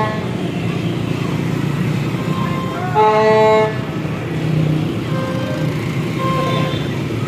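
A vehicle horn sounds once for under a second, about three seconds in, over a steady rumble of road traffic; fainter horn tones follow near the end.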